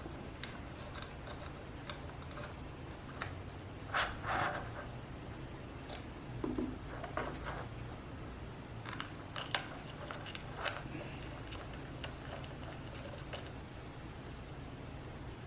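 Small metal parts being handled as a bracket is fitted and screwed to the bottom of a ZWO AM5 telescope mount: scattered light clicks, taps and short scrapes, with a few louder knocks about four, six and nine to ten seconds in.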